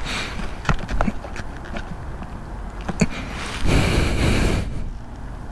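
Handling noise from a rider moving a stationary electric motorcycle: a few sharp clicks and knocks, then a rush of noise on the microphone lasting about a second just past halfway.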